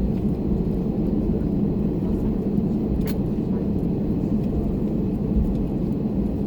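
Steady low rumble in the cabin of an Airbus A321neo taxiing, from its Pratt & Whitney geared turbofan engines at low power and the rolling airframe, with a single sharp click about three seconds in.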